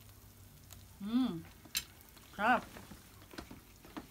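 A person chewing a mouthful of grilled pork barbecue, with wet mouth clicks and smacks, and a short appreciative hum about a second in.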